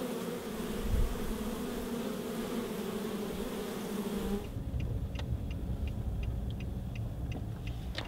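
Honeybees buzzing in a steady hum at the hive entrance, stopping suddenly about four seconds in. After that, a low rumble with faint, evenly spaced ticks a little over two a second.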